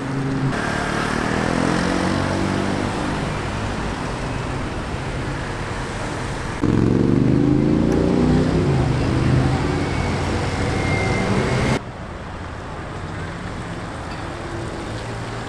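Cars passing one after another through a roundabout, engines accelerating with rising and falling notes, in three stretches cut abruptly together. The loudest is an Audi RS6 Avant's V8 accelerating past in the middle; a Land Rover Defender passes more quietly near the end.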